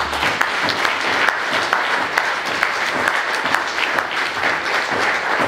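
Audience applauding: many hands clapping densely and evenly.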